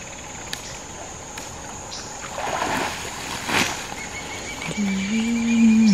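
Wet cast net hauled out of a creek, with splashing and sloshing water and a sharp knock a little past halfway, over a steady high insect drone. Near the end a rising buzzing tone and a low, drawn-out steady tone come in.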